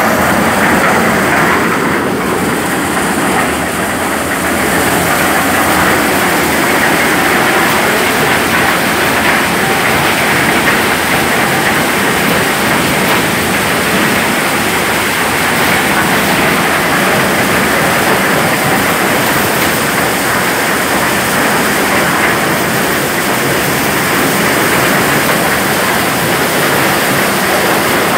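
Maize sheller running at work: a loud, steady mechanical din of the threshing drum and cob elevator, with cobs and shelled kernels rattling through the machine.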